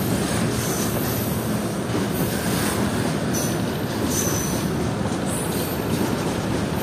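Loaded open freight wagons rolling past on the rails, a steady heavy rumble of wheels on track. A few brief high-pitched squeals come through about halfway through.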